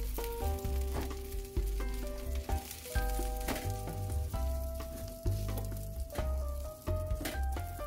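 Egg-battered zucchini slices with minced shrimp sizzling in hot oil in a frying pan, a steady sizzle, under background music of a simple melody over bass notes.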